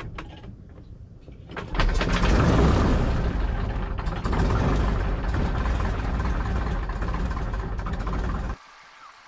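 Piper J-3 Cub's engine being hand-propped and catching about two seconds in, then running with a loud, steady rumble. The sound cuts off suddenly near the end.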